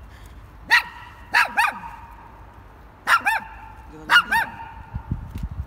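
Small dog yapping: one sharp bark, then three quick pairs of barks, each bark rising and falling in pitch.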